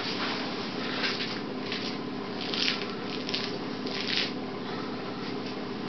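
Several short rustling, scuffing noises over a steady low hum, the loudest about two and a half and four seconds in.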